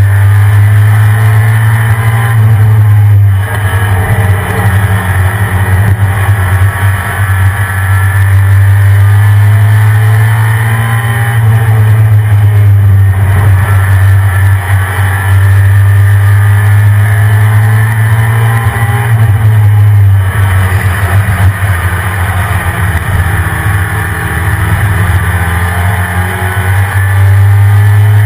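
Engine of a stock 1993 Ford F-150 Lightning, a 5.8-litre V8, running loud with a heavy low drone, its pitch rising and falling slowly as it drives. The drone breaks up briefly a few times.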